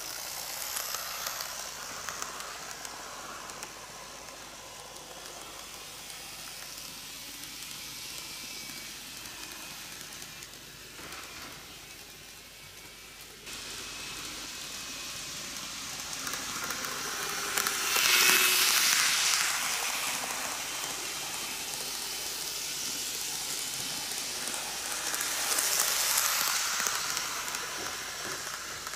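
N-gauge model trains of the Shizuoka Railway A3000 and 1000 series running on the track: a steady hissing rattle of small wheels rolling on the rails. It swells louder twice, around the middle and near the end, as the trains come by close.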